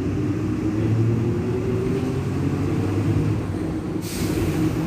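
City bus drivetrain running: the 7.2-litre turbo-intercooled MWM 6.12 TCE diesel, with the differential making a loud drone ("roncando alto"). A short burst of hiss comes near the end.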